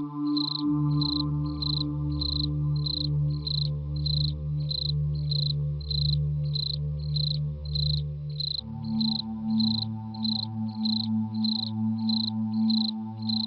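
Horror background track: steady cricket chirps, about two a second, over a low sustained drone whose notes shift about a second in and again a little past halfway.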